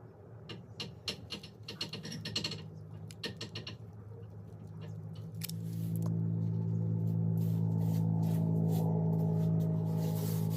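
A quick run of small clicks and scratches, then a steady low gong-like drone with overtones that swells in about halfway through and holds.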